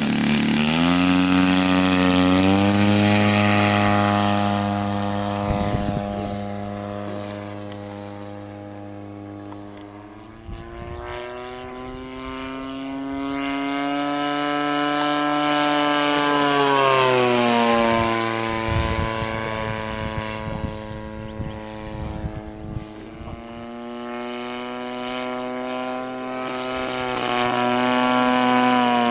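Propeller-driven radio-controlled model warbird flying past three times. Its single engine's note swells in loudness and rises in pitch as it approaches, then drops in pitch and fades as it passes.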